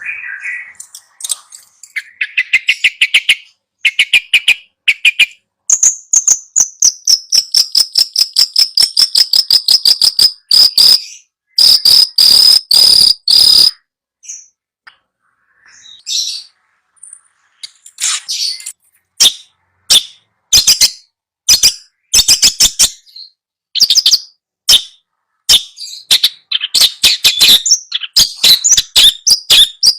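Songbird singing fast chattering phrases of rapidly repeated sharp notes, with a long high whistle that slides slowly down a few seconds in. After a brief lull near the middle, more rapid chattering phrases follow.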